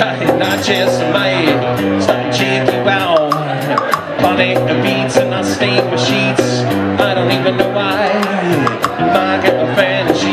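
Live duo performance: a man singing and playing guitar while a percussionist keeps a steady beat on hand drums and a cymbal.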